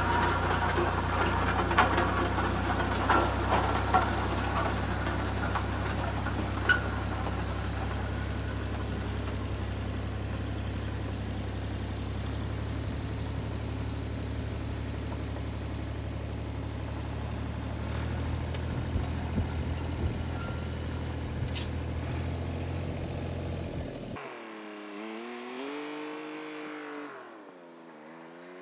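Ford 4000 tractor engine running steadily under load as it drags a timber-and-steel grading beam over a gravel farm road, with knocks and clatter from the drag and its chains in the first few seconds. The engine sound fades as the tractor moves away, and in the last few seconds it is fainter with a wavering pitch.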